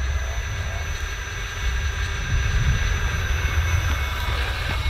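Heavy wind rumble on the microphone over the running hum of a 3D-printed two-wheeled gyro-stabilized RC car, its brushless motor with belt drive and spinning gyroscope, growing a little louder about halfway in as the car comes closer.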